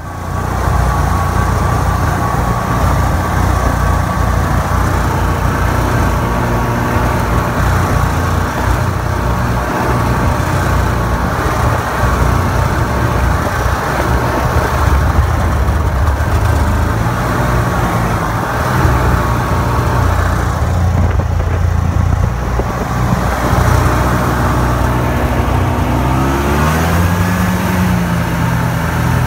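Snowmobile engine running steadily under way, its pitch rising about three-quarters of the way through as it speeds up.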